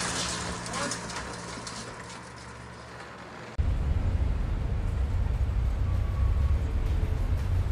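A rolling street noise fading away over the first three seconds, then, from about three and a half seconds in, the steady low rumble of a car being driven, heard from inside the cabin.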